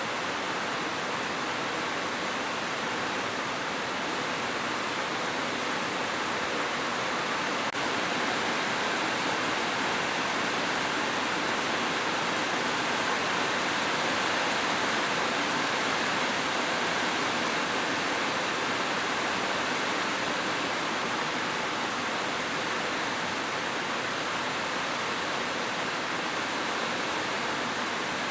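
Steady, heavy rain: an even hiss that holds at the same level throughout.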